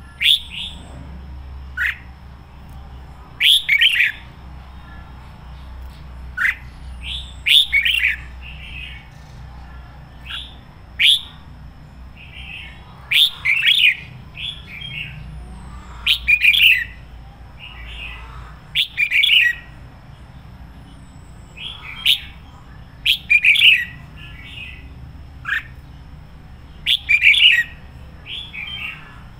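Red-whiskered bulbul singing: short, loud, warbled phrases every one to three seconds, over a low steady hum.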